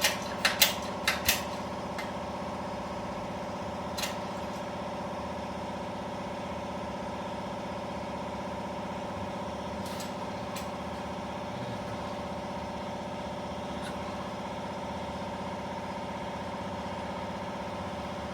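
A machine running with a steady, even hum, with a few light metallic clicks in the first second or so and single clicks about four and ten seconds in.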